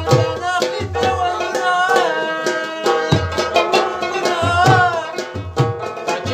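Pashto tapay sung by men, accompanied by a mangay, a clay pot drum beaten with the hands, whose deep strokes carry the rhythm, and by the plucked rabab.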